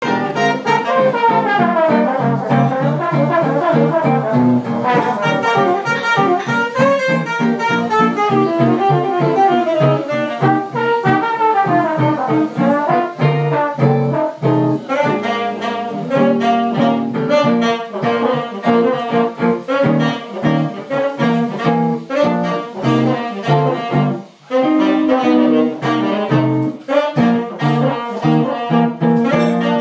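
Live jazz trio of trombone, saxophone and electric guitar playing together, the horns trading melodic lines over sustained low guitar notes.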